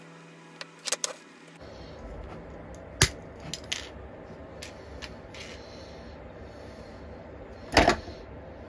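Hard small parts and tools being handled on a workbench: scattered sharp clicks and clinks, loudest in a short cluster near the end. Under them is a low steady background that changes abruptly about one and a half seconds in.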